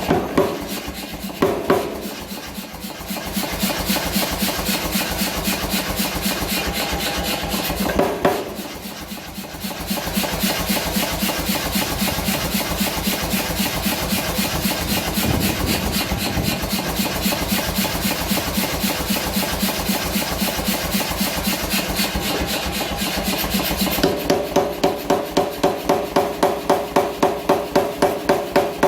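Power hammer hitting over and over in quick succession, forging a bar of H13 tool steel, with two short breaks. Near the end the blows change to slower, louder, ringing strikes, about two or three a second.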